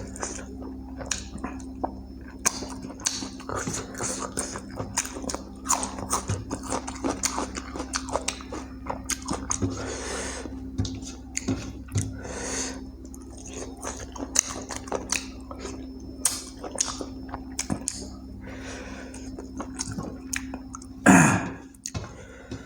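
Close-up chewing and wet mouth sounds from eating chicken curry with rice, with many short smacks and clicks over a steady low hum. One louder burst comes about a second and a half before the end.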